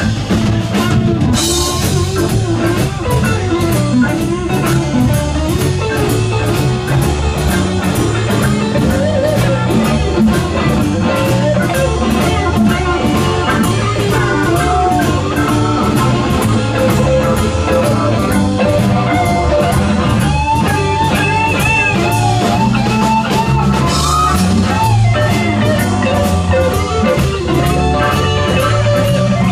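Live blues-rock band playing: an electric guitar lead with bent, sliding notes over a drum kit and full band.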